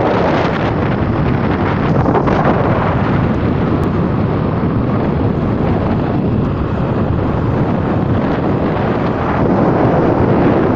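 Wind rushing over the microphone of a phone carried on a moving motorcycle: a loud, steady roar of wind noise, with the motorcycle's running and road noise mixed in underneath.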